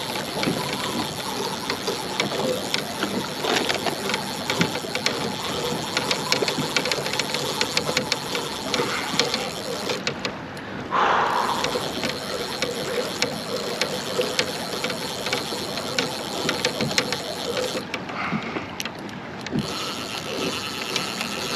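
Fishing reel being cranked to wind fresh line onto its spool: a steady, fast run of fine gear clicks and ratcheting, with a short louder noise about halfway through.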